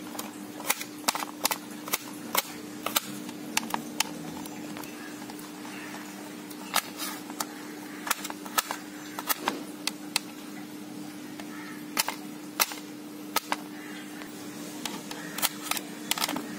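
Small knife chopping garlic cloves on a stainless steel plate: irregular sharp clicks as the blade strikes the steel, over a steady low hum.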